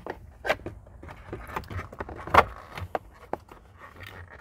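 Plastic steering column shroud halves being handled and worked into place: a string of light clicks and knocks, with one sharper knock about halfway.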